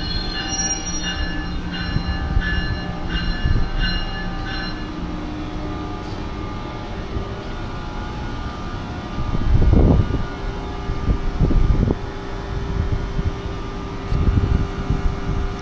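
New Jersey Transit passenger train rolling past along the platform, a steady heavy rumble of wheels and cars. For the first five seconds a metallic ringing tone pulses about twice a second, and heavier low thumps come about two-thirds of the way through and again near the end.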